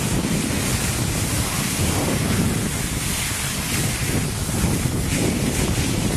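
Wind buffeting the microphone in a steady rush during a fast cross-country ski descent, with the hiss of skis sliding over hard, icy snow.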